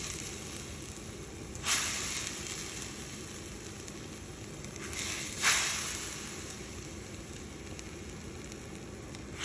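Fish curry gravy boiling in a clay pot: a steady bubbling hiss, broken by two louder sputters, about two seconds and five and a half seconds in.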